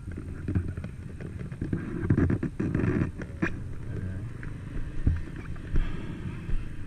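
Muffled thumps and a low rumble from a helmet-mounted camera as its wearer walks, the strongest few about two to three and a half seconds in.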